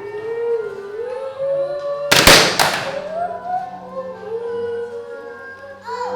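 Music with a sliding, wavering melody, interrupted about two seconds in by a loud, noisy crash-like sound effect lasting under a second.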